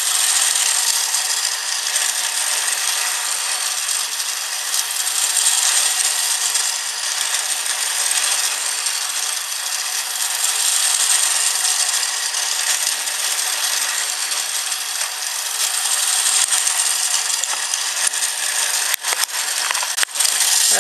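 Battery-powered toy circus train running on plastic track: its small motor and gears make a steady, high-pitched whirring rattle. A few sharp clicks come near the end.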